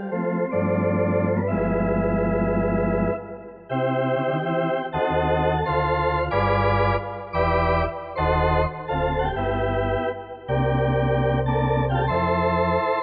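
Yamaha PSR-S670 digital arranger keyboard played with an organ voice: full sustained chords over held bass notes, changing every second or so, with a slight wavering vibrato. The sound drops away briefly about three seconds in before the chords resume.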